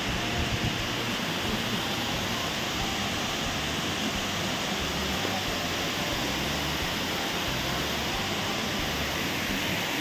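Steady rush of falling water from Khandadhar waterfall, an even unbroken roar.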